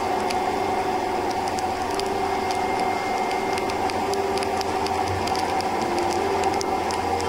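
Steady wind and road noise of a motorcycle riding in heavy rain, picked up by an action camera, with a steady engine drone underneath. Frequent small irregular ticks of raindrops striking the camera run through it.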